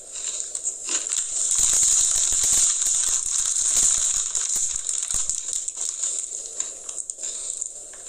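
Oreo sandwich cookie being bitten and chewed close to the microphone: a dense run of crunching and crackling, loudest in the middle.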